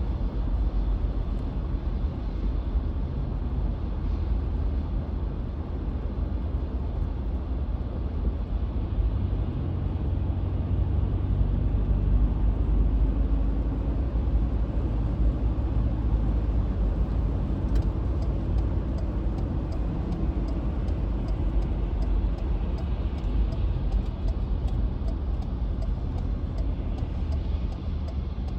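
Car cabin noise while driving on a snowy road: steady low engine and tyre rumble. About two-thirds of the way in, a steady rapid ticking starts.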